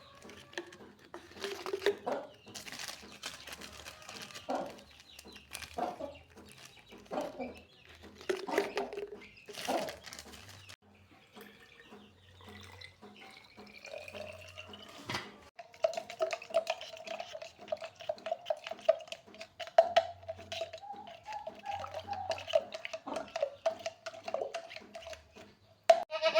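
Baby goats suckling milk from bottles: wet sucking and slurping clicks with a few short calls. A steady humming tone runs under the rapid clicks in the second half.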